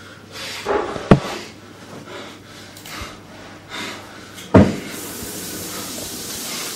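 A person breathing hard and scrambling on hands and knees up carpeted stairs, with a sharp knock about a second in and a louder thump about four and a half seconds in. A steady hiss fills the last couple of seconds.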